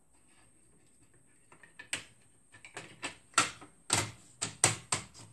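Hard plastic parts of a Xerox 3370 fuser's housing clicking and knocking as the lower shell is handled and fitted on: about a dozen sharp, irregular clacks, starting about two seconds in.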